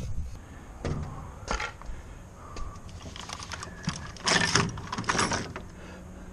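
Footsteps and knocks on an aluminium stepladder and the boat deck, with scattered rattling and scraping clatter. The loudest bursts come about three to five seconds in.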